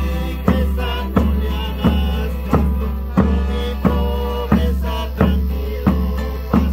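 Carnival folk music with a steady drum beat, about three strokes every two seconds, over a constant deep bass and a wavering melody.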